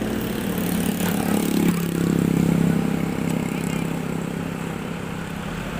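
Motorcycle engine running while riding. Its pitch rises over the first second and a half, drops suddenly, then holds steady.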